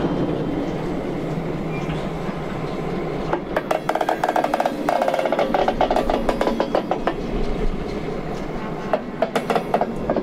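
Railway cars rolling slowly past with a steady rumble from their wheels and running gear. About three seconds in, a rapid metallic chattering squeal sets in for several seconds, then returns briefly near the end.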